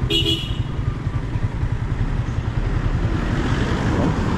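Yamaha MT-15's single-cylinder 155 cc engine running steadily through its stock exhaust while riding, heard from the rider's seat. A short horn beep sounds at the very start.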